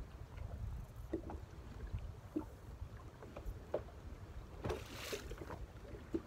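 Water lapping against a boat's hull in small slaps about once a second, over a low rumble of wind. There is a brief hiss about five seconds in.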